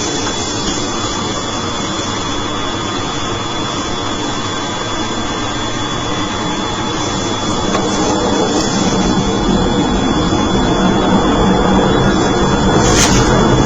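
Steady engine noise that grows gradually louder and deeper from about eight seconds in, with a constant thin high whine.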